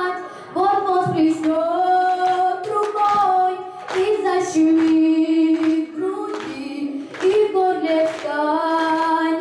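A girl singing a Russian song into a handheld microphone, with long held notes, over a backing track with a steady beat.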